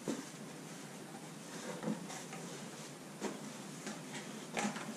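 Cardboard boxes being lifted and shifted by hand: scattered light knocks and rustles of cardboard, with a few sharper bumps spread through.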